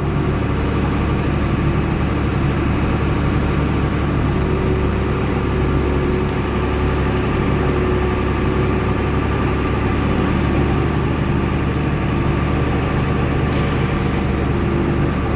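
Tractor engine running steadily at road speed while towing a train of four farm wagons, with a brief click near the end.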